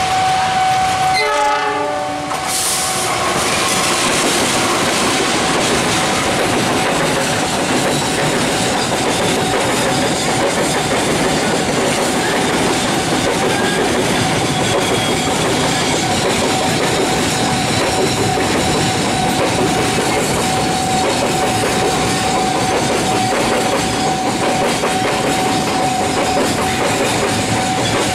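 A freight locomotive sounds its horn briefly about a second in. Then a long container train rolls past, its wagons' wheels clattering over the rail joints in a steady, dense rumble.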